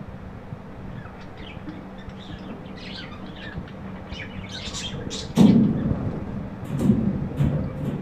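Budgerigars chirping in short, scattered high calls. A sudden low rumbling thump a little past halfway is the loudest sound, with two more shorter rumbles near the end.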